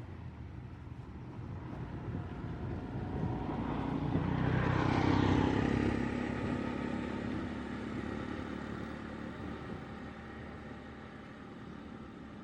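A motor vehicle passing by: its engine and tyre noise build up, are loudest about five seconds in, then die away.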